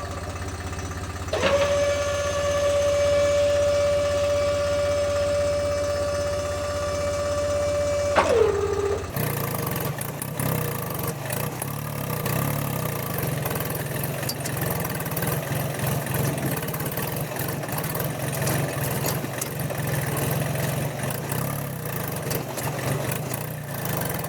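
A small motor on a DIY model mini tractor whines at a steady pitch for about seven seconds, dips in pitch and stops. A rattling, engine-like running sound with many small clicks follows and carries on to the end.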